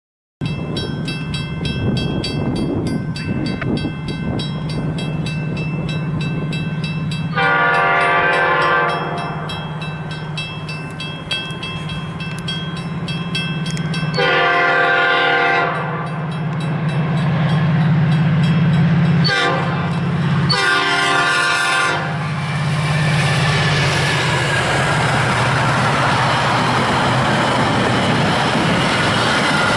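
Metra commuter train approaching a grade crossing and sounding its horn in the long-long-short-long crossing pattern, with the crossing bell ringing in quick even strokes. From a little over twenty seconds in, the train passes with a steady rumble of wheels on rail.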